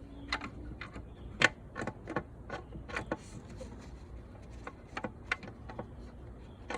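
Irregular small metal clicks and taps, the sharpest about a second and a half in: a bolt held on a magnet knocking against the intake manifold and engine as it is fished down into a deep bolt hole.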